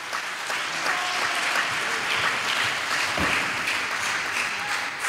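Congregation applauding, a dense steady clapping that swells up at once and dies away near the end.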